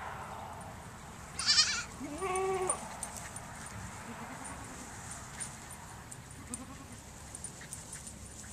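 Goat kids bleating: a short high-pitched bleat about a second and a half in, the loudest sound, then at once a longer, lower bleat. A few faint calls follow later.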